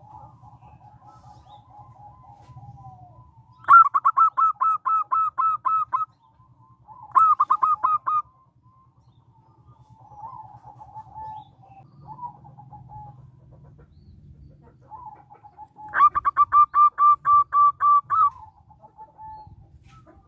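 Zebra dove (perkutut) calling: soft rolling cooing trills, broken three times by loud bursts of rapid, evenly spaced staccato coos, about a dozen notes each, at about four, seven and sixteen seconds in. A faint low hum runs underneath.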